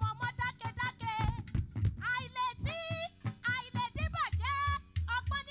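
Live church praise music: a woman singing a melodic lead through a microphone over a low bass line.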